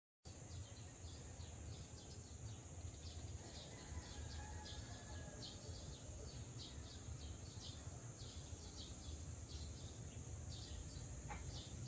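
Faint outdoor ambience: birds chirping in short, repeated calls, two or three a second, over a steady high hiss and a low rumble.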